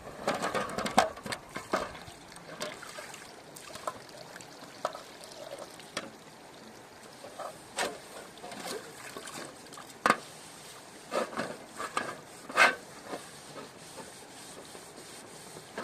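Water splashing and trickling, with irregular knocks and clinks, a cluster of them in the first two seconds and more later on.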